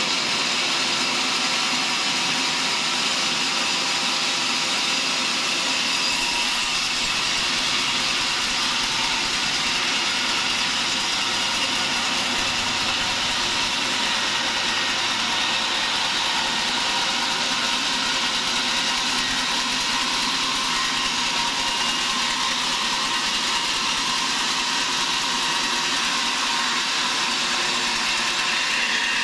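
Band sawmill running steadily, its blade cutting lengthwise through a large mahogany log: an unbroken machine noise that holds the same level throughout.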